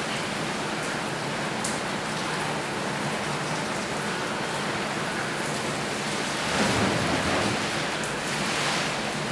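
Water spraying steadily from a shower onto birds, an even rain-like hiss that swells louder for a moment about two-thirds of the way in.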